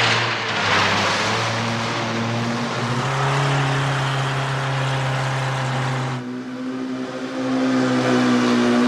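Long-tail boat engines running at full speed, with a hiss of water spray loudest in the first second or so. The engine note steps to a new pitch about three seconds in and again about six seconds in.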